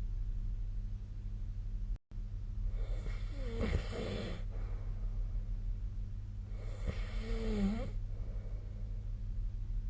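A sleeping person snoring: two long snores about four seconds apart, each a rough, wavering-pitched rattle, over a steady low hum.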